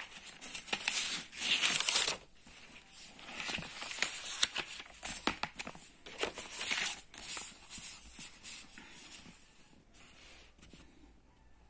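Notebook paper rustling and crinkling as pages are handled and turned, in several bursts that are loudest in the first half and die away near the end.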